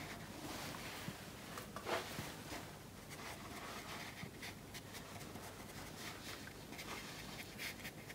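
Faint scratchy swishes of a 3/4 inch flat brush dragged across watercolour paper, a few short strokes laying in streaks of wet paint, one louder about two seconds in.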